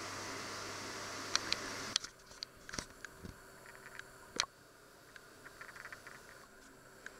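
A steady hiss for about two seconds, then a quieter background with a few scattered sharp clicks and taps.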